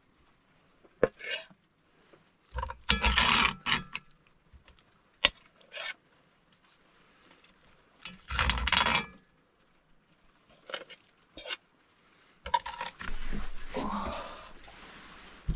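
Metal slotted spoon scraping and clinking against the Dutch oven as food is scooped out into a bowl, in several short bursts, followed near the end by a longer, softer rustle.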